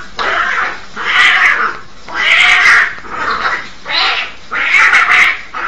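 Two domestic cats fighting: a run of loud, harsh screeches and yowls, about one a second.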